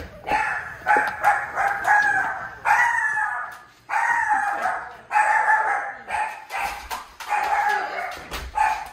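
A dog barking over and over, about ten drawn-out barks roughly one a second.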